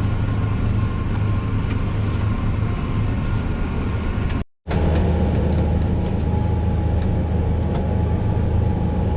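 Fendt tractor running steadily under load while it drives a Kverneland round baler at work, heard from inside the tractor cab. The sound cuts out for an instant about halfway through.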